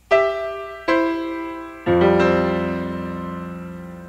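Closing musical sting: three notes struck about a second apart, the third a fuller, lower chord that rings on and slowly fades.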